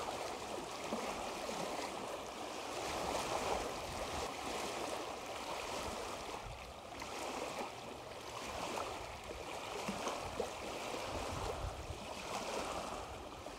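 Small waves lapping onto a beach and shallow water splashing as a man wades in and scoops water over his head. Steady wave wash that gently swells and eases, with low wind rumble on the microphone.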